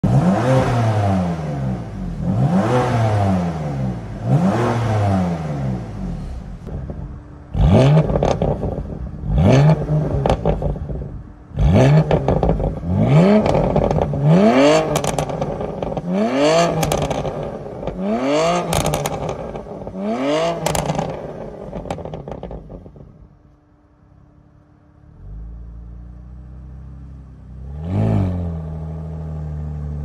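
BMW M2 Competition's S55 twin-turbo straight-six revved repeatedly at standstill, each rev rising and falling within about a second. The first few are through the stock exhaust. From about seven seconds in, the revs go through an RES stainless steel 304 equal-length mid pipe: a string of sharper, louder revs every second or two. The engine then settles to idle, with one more rev near the end.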